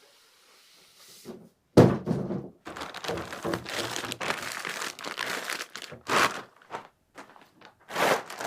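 Soundbar and its packaging being handled: a few thuds and knocks among irregular crinkling and rustling of wrapping.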